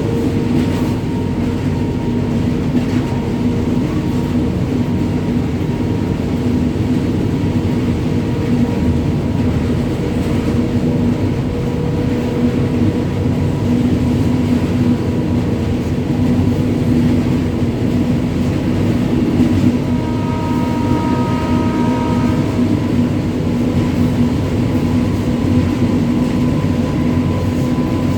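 WAG-9 three-phase electric locomotive running under power: a steady, loud rumble with a constant electrical hum over it.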